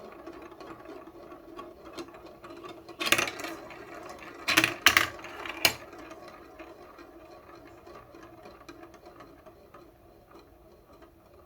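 Balls rolling and rattling down a plastic building-block marble run: a steady fast clatter, with a few sharp clacks in the middle as balls knock against the track.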